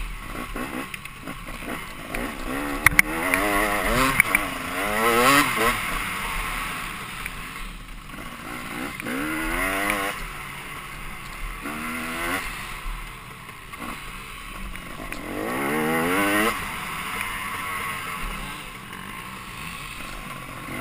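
Dirt bike engine accelerating in several rising sweeps as the rider pulls through the gears, with wind rush on the helmet-mounted microphone. A few sharp ticks come about three seconds in.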